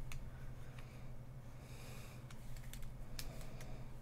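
A few scattered light clicks of computer keyboard keys over a steady low electrical hum.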